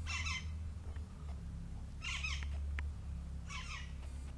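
Three short bursts of high-pitched animal calls, chirp-like, about a second and a half apart, over a steady low hum.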